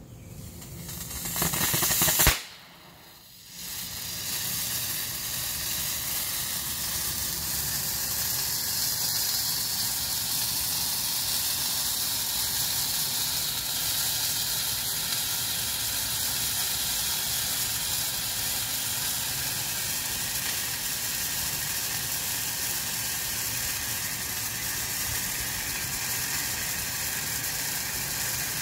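Solas Handflare, a red handheld marine distress flare, igniting with a hiss that swells over the first two seconds, cuts out briefly, then burning with a steady, loud hiss.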